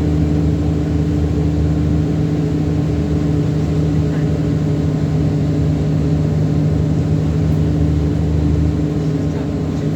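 ADL Enviro400 Trident double-decker bus engine running steadily, with a low, even drone that holds the same pitch throughout.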